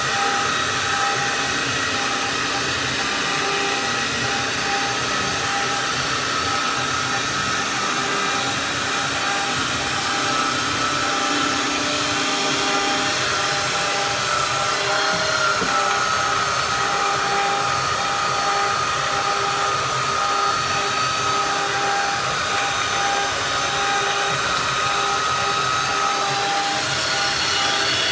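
Makita belt sander running steadily, its belt sanding across the wooden top of a slab table. A constant motor whine with noise from the belt on the wood, the pitch dipping and recovering slightly a couple of times as it is pressed into the work.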